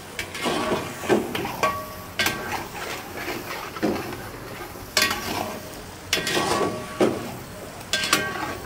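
A long metal spatula scraping and stirring chicken and masala in a steel pot, over the sizzle of the mix frying. Several sharp metal-on-metal knocks ring briefly, about 2 s, 5 s and 8 s in.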